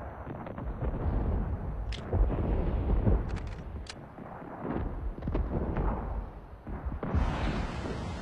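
Battle sound effects: a low rumble of distant artillery with repeated booms and sharp gunshots. About seven seconds in it gives way to a steady rushing noise of wind and water.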